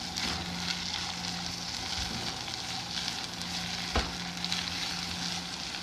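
Minced meat sizzling and crackling in a hot pan as it is stirred, with one sharp knock about four seconds in.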